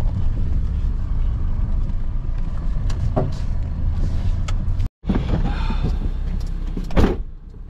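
Steady low rumble inside a van's cabin as it drives on a wet road. About seven seconds in, a single loud thump: the passenger door being shut.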